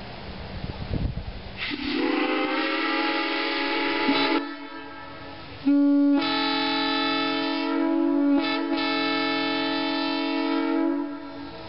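A train whistle blowing two long blasts, each a chord of several steady tones. The first starts about two seconds in with a breathy rush and lasts about two and a half seconds. The second is louder and lasts about five seconds, with a brief break in the middle.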